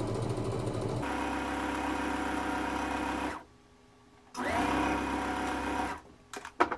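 Electric domestic sewing machine stitching a seam through layered fabric, running steadily, stopping about three seconds in, then starting again with a rising whine and running for another second and a half. A few sharp clicks near the end.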